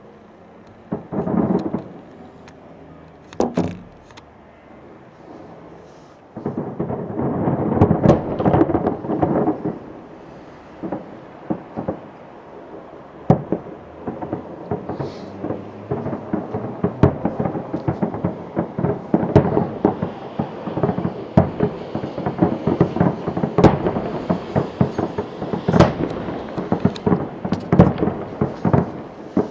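Fireworks exploding: a few separate booms at first, then from about six seconds in a dense, continuous barrage of bangs and crackles.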